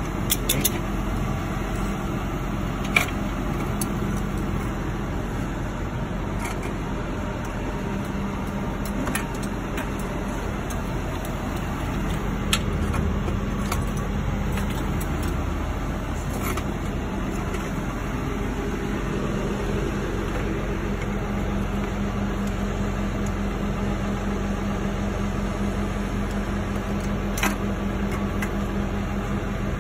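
Tow truck engine idling steadily, with a few sharp metallic clicks as the wheel-lift strap and its hook hardware are handled and fitted around a car tyre.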